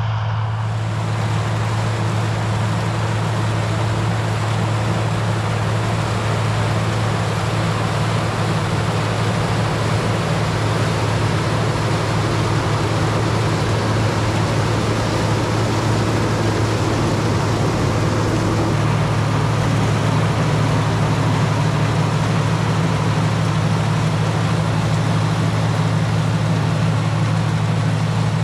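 A tractor engine running steadily under load while pulling a corn picker through the field, a continuous low drone with machinery rattle and clatter over it.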